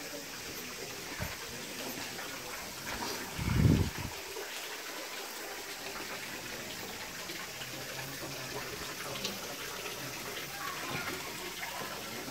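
Water running from a temple purification fountain's bronze dragon-spouted basin and splashing steadily into the stone troughs below. One short, low thump about three and a half seconds in.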